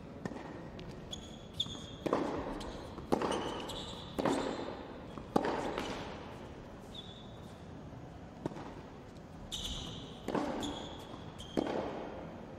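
Tennis balls struck by rackets and bouncing on an indoor hard court during a practice rally, a string of sharp hits that echo in the large hall. Short high squeaks of shoes on the court come between the shots.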